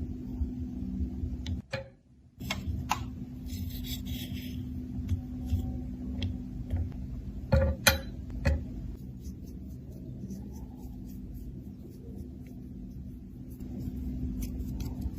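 Handling noise: scattered light clicks and taps of small objects over a steady low hum, with a brief drop-out about two seconds in.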